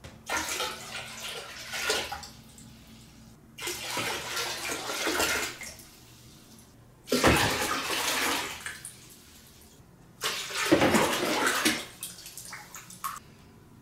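Water poured from a bowl into a glass aquarium tank, splashing into the water already in it, in four pours of about two seconds each, with a few drips near the end.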